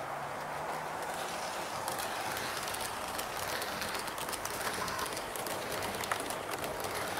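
Model train of silver push-pull coaches rolling past on model track, a steady rolling rumble with many rapid clicks as the wheels run over rail joints and points, the clicks growing thicker about two seconds in.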